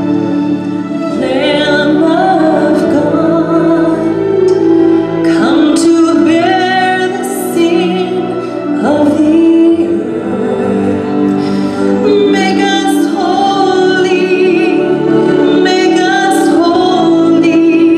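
A woman singing with vibrato over a steady accompaniment of keyboard and bowed violin.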